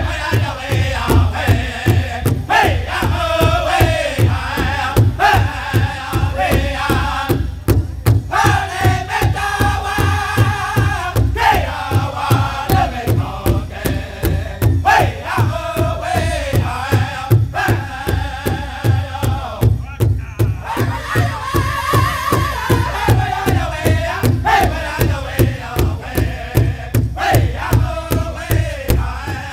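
Powwow drum group singing an intertribal song: several men singing together in high phrases that slide downward, over one large bass drum struck by all of them in a steady, even beat.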